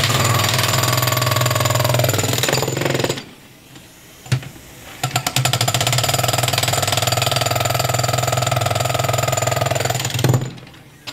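Milwaukee MX Fuel 72-volt cordless breaker hammering its chisel into a concrete slab. It runs in two bursts, stops for about two seconds around three seconds in, then hammers again for about five seconds.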